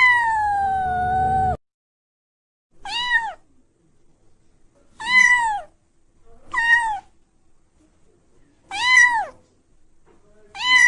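A kitten meowing in a high pitch: one long, slightly falling meow that cuts off suddenly, then five short meows about two seconds apart, each rising and falling in pitch.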